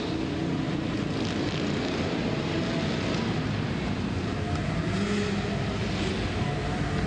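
Racing lawn mower engines running, their pitch shifting up and down over a steady background din.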